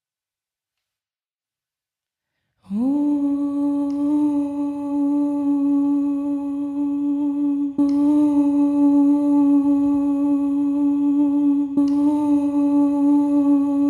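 Silence, then about two and a half seconds in a woman's hummed note slides up into a steady held drone, amplified through a microphone and effects pedals. Two faint clicks come where it briefly breaks.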